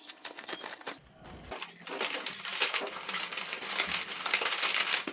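Cardboard-box packing material being handled and pulled apart, crinkling and crunching: a few sharp clicks at first, then a dense run of crackling from about two seconds in.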